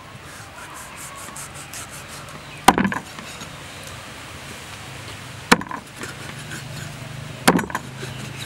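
Meat cleaver chopping through stingray flesh onto a chopping board: three sharp chops a couple of seconds apart.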